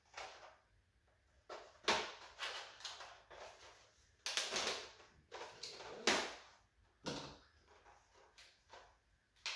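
Plastic blister packaging being cut and pried open with a flipper folding knife: irregular spurts of crackling plastic and scraping, with a few sharp cracks about 2, 4 and 6 seconds in.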